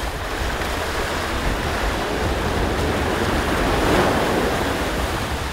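Ocean surf breaking and washing up the beach, a steady rushing noise that swells a little about four seconds in.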